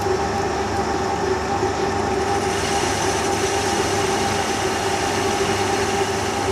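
Turret lathe running steadily under a flow of cutting oil while its tool faces off the rear face of a cast model-engine crankcase: a constant machine hum with a cutting hiss that grows stronger about two and a half seconds in.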